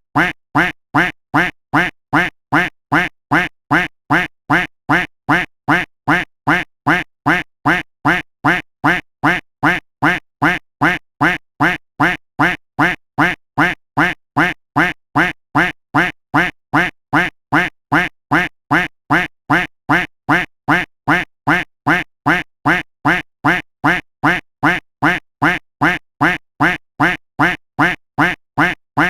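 A duck quack sound effect looped without a break, the same short quack repeated at an even pace of about two a second.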